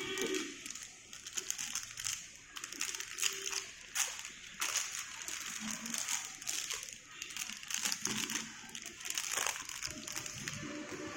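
Crinkling and rustling with many small, irregular clicks, as of plastic packaging being handled.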